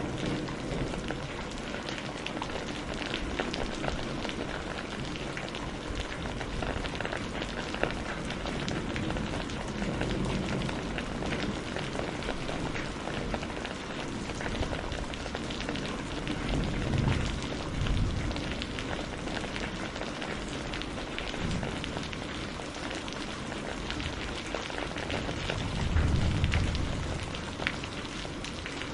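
Steady rain pattering densely, with two low rumbles of thunder swelling up, one about halfway through and a louder one near the end.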